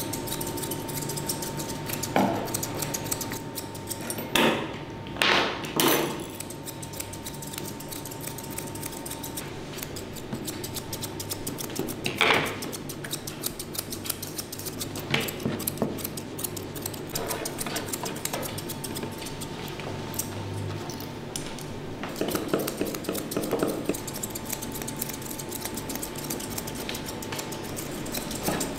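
Steel grooming scissors snipping through a ragdoll cat's long fur in quick light cuts, with a few louder metallic clicks, three of them close together about four to six seconds in.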